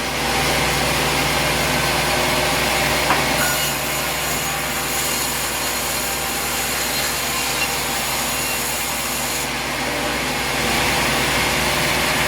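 Sawmill cutting through a log: steady machine and blade noise with a faint running hum, a single sharp click about three seconds in, and slightly louder stretches near the start and near the end.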